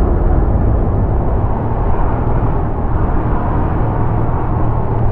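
Motorcycle on the move: steady wind noise rushing over the microphone, with the even drone of a Yamaha YBR 125G's single-cylinder four-stroke engine underneath.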